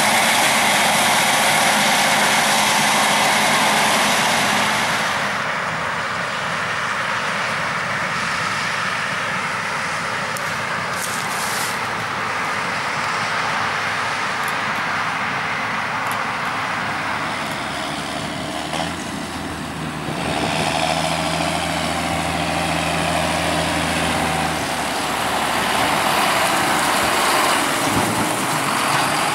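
Heavy diesel farm machinery running steadily. A deeper engine hum comes in for several seconds in the second half.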